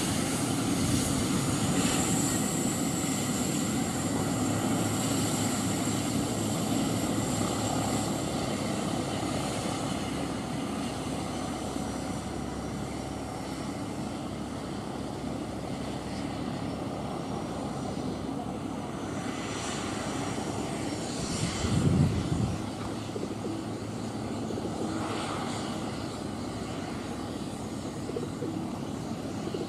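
Twin Pratt & Whitney PW615F turbofans of a Cessna Citation Mustang running at taxi power as the jet lines up on the runway, a steady jet noise with a high whine that fades over the first ten seconds or so. About two-thirds of the way through there is a brief low thump.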